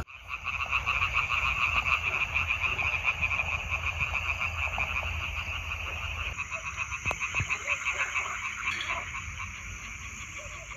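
A chorus of many frogs croaking in a dense, rapid pulsing din, growing fainter toward the end.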